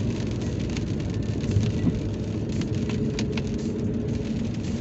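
Car driving, heard from inside the cabin: a steady low road and engine rumble, with scattered taps of raindrops on the car.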